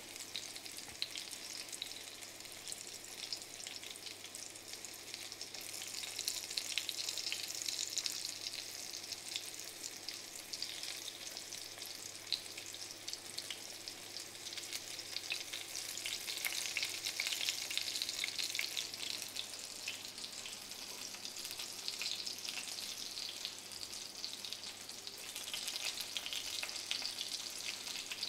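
Crumbed garfish fillets shallow-frying in extra virgin olive oil in a stainless steel frying pan, crisped and nearly done: a steady sizzle with constant fine crackling that swells and eases a little a few times.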